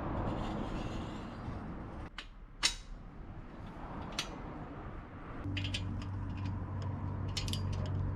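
Metal clinks and taps of tools and parts being handled during motorcycle exhaust and oil work. About two-thirds of the way in, a steady low hum starts up under a quick run of clinks.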